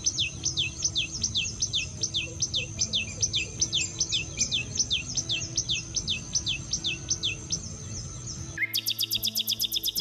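Common tailorbird singing: one whistled note, sweeping down in pitch, repeated about three times a second. About eight and a half seconds in it gives way to a common nightingale's song, a fast run of rapid repeated notes.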